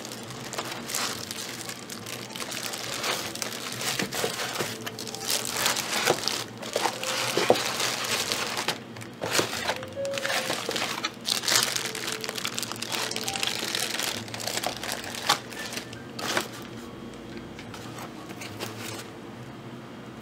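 Plastic bag wrapping crinkling and rustling in irregular bursts as a bagged microscope is handled and lifted out of its cardboard box, dying down near the end, with background music.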